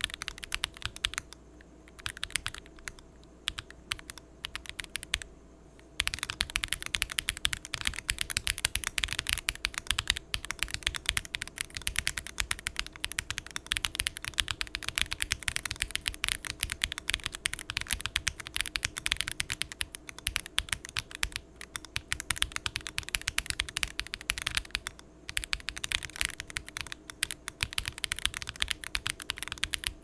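Typing on an AKKO ACR Pro Alice Plus mechanical keyboard with lubed Akko Crystal switches, a PC plate, case foam and ASA keycaps. Lighter, sparser keystrokes with short pauses come first, then louder, fast, continuous heavy typing from about six seconds in.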